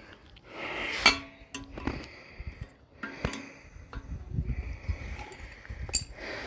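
Wrench and metal bolt clinking as a toilet's tank-to-bowl bolt is worked loose: a few sharp metallic clinks and knocks, some ringing briefly, over low handling rumble.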